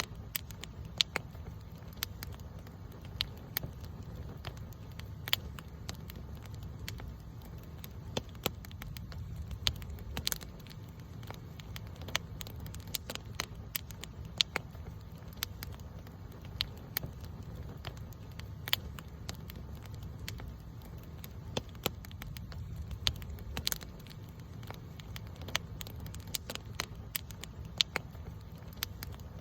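Wood campfire burning, with irregular sharp crackles and pops over a steady low rumble of flame.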